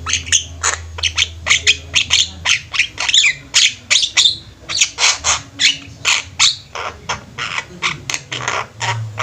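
A group of Javan mynas (jalak kebo) kept together calling busily, a rapid run of short harsh squawks, about three a second, over a steady low hum.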